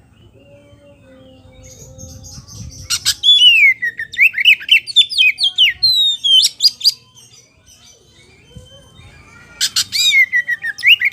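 Oriental magpie-robin (kacer poci) singing loudly in two bursts of quick whistled phrases. Each burst opens with sharp clicking notes, then a falling whistle and a run of short rising sweeps. The first burst starts about three seconds in and the second near the end.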